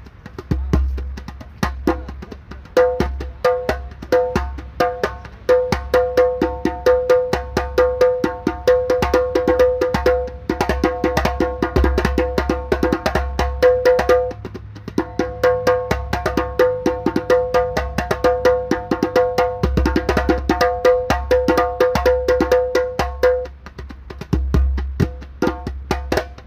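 Djembe with a loosely tensioned head played solo in fast hand strikes, each ringing with a clear pitched tone, over the steady low rumble of a moving city bus. The playing eases off briefly about halfway through and again near the end.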